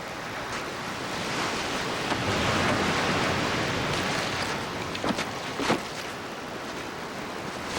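Ocean surf washing in, swelling to a peak about two to four seconds in and then easing off. Two short sharp knocks come a little after five seconds.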